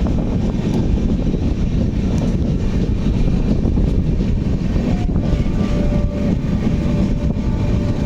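Train running with a steady low rumble. From about five seconds in, a faint held whine sounds over it.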